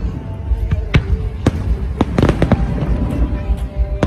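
Aerial fireworks exploding in quick, irregular succession: sharp bangs and crackles with a dense cluster about two seconds in, over a continuous low rumble.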